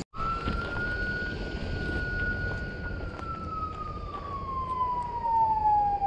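A siren holds one steady note for about three seconds, then winds slowly down in pitch. Cicadas or crickets shrill steadily underneath.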